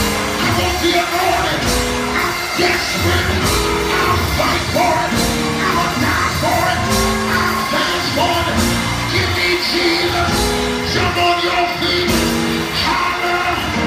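Live gospel praise music: held keyboard chords over a steady beat of drum and cymbal hits, with a singer and yells from the congregation.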